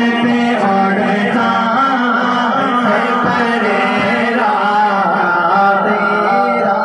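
Man singing a naat (Urdu devotional song in praise of the Prophet) into a microphone, amplified through a PA system, in long continuous melodic lines over a steady low drone.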